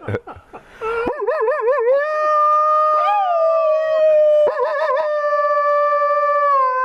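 Two men howling like wolves together: one long, high howl that wobbles in pitch at first and is then held, wobbling again briefly midway.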